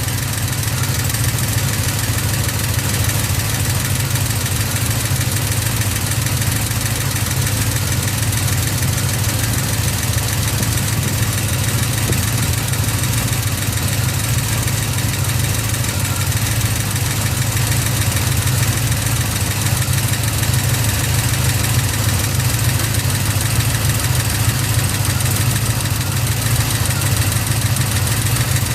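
A GM LS7 7.0-litre V8 fitted with a Livernois Stage 2C camshaft, idling steadily with a fine ticking over the low engine hum, which the owner takes for lifter noise.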